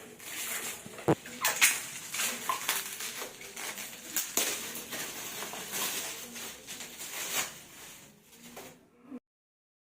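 Product packaging being handled and unwrapped: crinkling and rustling with scattered sharp clicks and knocks, cutting off abruptly about nine seconds in.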